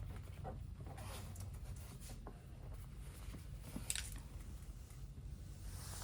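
Handling noises as an insulated window cover is fitted: light rustling and scattered clicks, with one sharper click about four seconds in, over a steady low hum.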